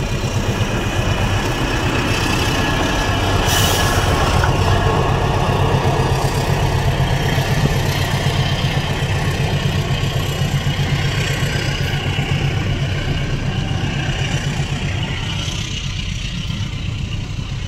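Freight train of rail tank wagons rolling past at close range: a steady, loud rumble and clatter of steel wheels on the rails.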